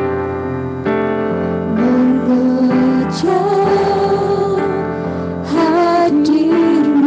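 Two young women singing a worship song as a duet into microphones over instrumental accompaniment. They hold long notes with vibrato, and the melody steps up after about three seconds and again after about five.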